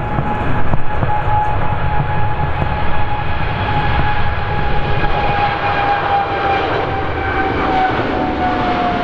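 Aircraft engines running: a steady whine over a broad roar, the whine slowly falling in pitch. Low gusty rumble of wind on the microphone in the first few seconds.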